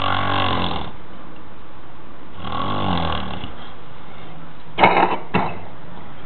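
A man snoring: two snores, each about a second long and about two and a half seconds apart, then two short, sharp, louder noises about two thirds of the way through.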